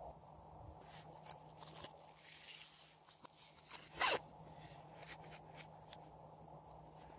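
Hands handling a hard plastic toy case, with scattered light clicks and taps. About four seconds in comes one short, rasping zip-like scrape, the loudest sound.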